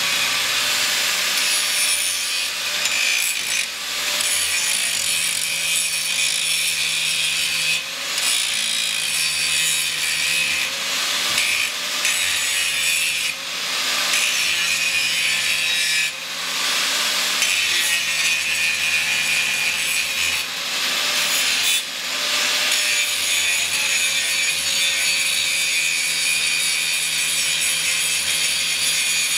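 Angle grinder grinding steel angle iron: a continuous harsh grinding hiss over the motor's steady whine. The motor pitch sags and recovers as the disc is pressed into the metal, and the sound dips briefly several times when it is eased off the work.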